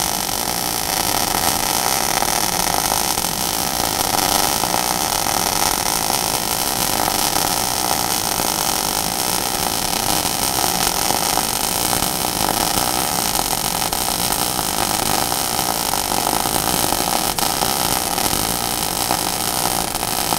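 MIG (gas metal arc) welding arc from an ESAB Rebel 235 laying a cap pass: a steady, even hiss and buzz with no breaks. The arc is run about one volt high for the wire feed speed to keep the puddle wet.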